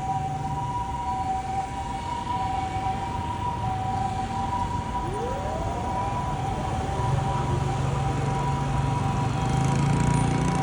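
Two Japanese ambulances' electronic two-tone 'pii-poo' sirens sounding together, so both tones are heard at once. About five seconds in, a mechanical motor siren winds up, rising in pitch. Engine and traffic rumble grows toward the end.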